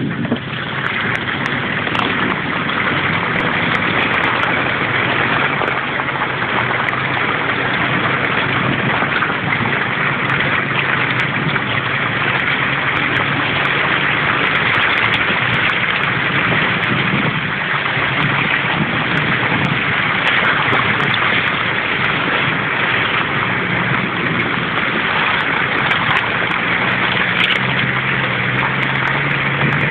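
Four-wheel-drive vehicle's engine running at low speed on a rough dirt track, heard from inside the cab, with a steady rushing noise over a low engine hum that grows stronger near the end.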